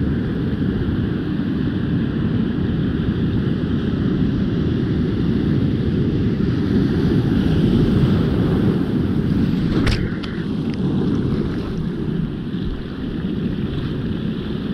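Ocean surf breaking and washing in close, swelling loudest about eight seconds in, heavily mixed with wind buffeting the microphone. A single sharp click about ten seconds in.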